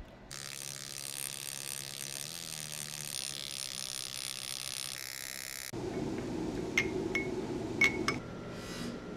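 Foredom flex-shaft rotary tool running steadily as its handpiece grinds a metal ring, with a high hiss. It stops a little past halfway; a lower noise follows, with a few sharp clicks near the end.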